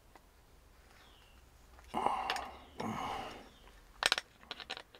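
Hands tightening a hose fitting on a truck air-brake valve: two short scuffing noises, then a quick run of sharp metal clicks near the end.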